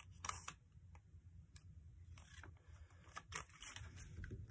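Faint rustling and crinkling of a paper sheet being creased and folded by hand, with a few short crackles.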